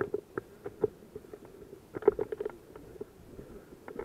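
Footsteps crunching on stony ground with gear rattling: a run of irregular short clicks and crunches, bunched about two seconds in and ending with a sharper knock.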